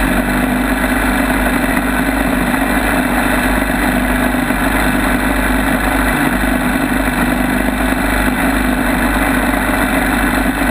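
Longtail mud motor's engine running steadily at speed, driving the long shaft and prop through shallow water.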